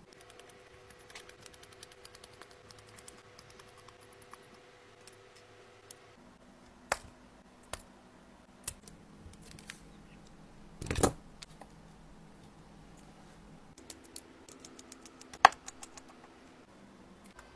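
Long acrylic fingernails and a small metal tool clicking and tapping against an opened iPhone's frame and parts on a silicone mat. The light ticks are scattered, with a louder clatter about two-thirds of the way through and one sharp click near the end.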